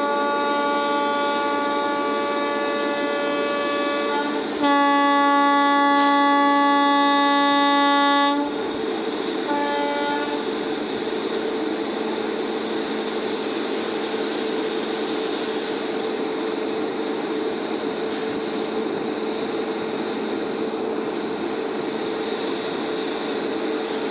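WAP-7 electric locomotive sounding its horn before departure: a long blast, then a louder, lower-pitched blast of about four seconds, then a short toot. After that the standing locomotive gives a steady hum.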